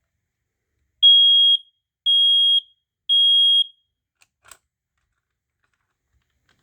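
Kidde i9070 smoke alarm sounding on test: three loud, steady, high-pitched beeps of about half a second each, a second apart, in the temporal-three fire-alarm pattern. A faint click follows about a second later.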